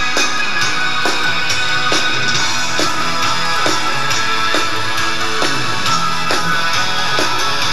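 A rock band playing live, with electric guitar to the fore and a drum hit a little under once a second.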